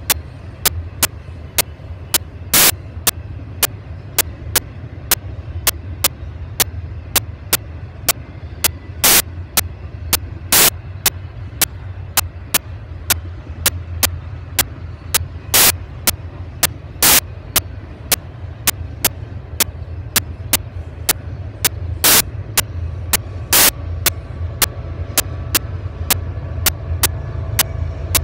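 A steady low rumble with a sharp, even click about twice a second. Near the end a faint steady tone comes in and the rumble grows slightly louder.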